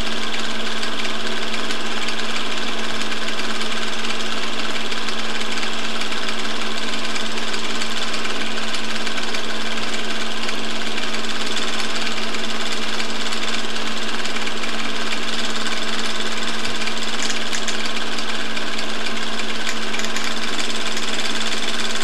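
Film projector running steadily: a continuous mechanical whirr and clatter with a constant hum underneath.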